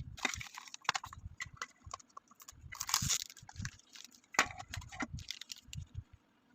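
Hands handling a toy and its packaging: irregular clicks, taps and light thumps with scratchy rustling, the loudest rustle about three seconds in.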